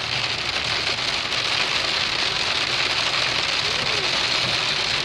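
Pea-size hail pelting a car's roof and windshield, a steady, dense patter heard from inside the car.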